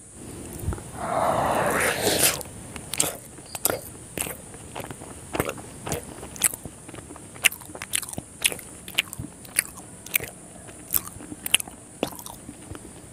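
Close-miked mouth sounds of eating a malai sandwich, a soft syrup-soaked chhena sweet. A longer bite-and-slurp comes about a second in, then chewing with many sharp lip smacks and clicks.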